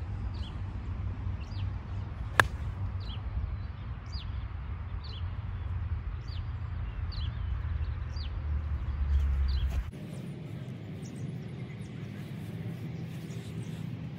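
A single crisp click of a golf wedge striking the ball, about two seconds in, over repeated short falling bird chirps. A low rumble runs underneath and drops away abruptly about ten seconds in.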